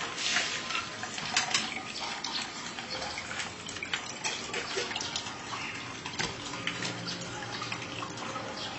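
Coconut water running from a freshly pierced young coconut through a steel spout into a plastic cup, a steady trickle with small splashes and drips.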